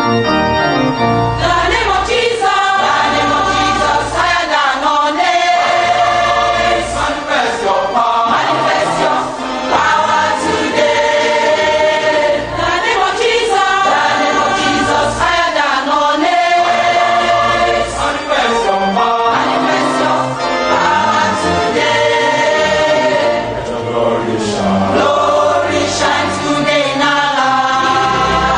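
Gospel music: a choir singing with instrumental backing.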